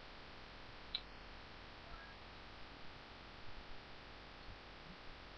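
Faint room tone with a low hiss and hum, and a single short mouse click about a second in.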